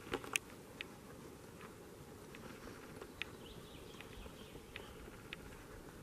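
Quiet forest ambience: a faint steady hiss with a few short, high peeps scattered through, and two sharp clicks just after the start.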